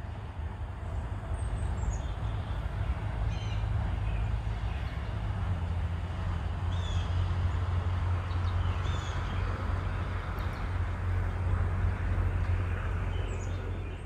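Spring woodland bird chorus: scattered short, high bird calls and chirps from several birds, over a steady low rumble.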